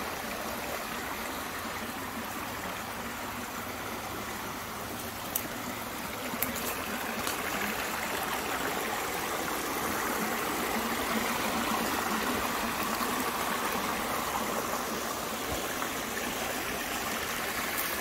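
Small creek running over rocks: a steady rush and trickle of shallow water, a little louder about halfway through.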